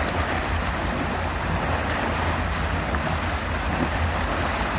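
Motorboat under way at towing speed, heard from aboard: a steady low engine drone mixed with the rush of water and wind.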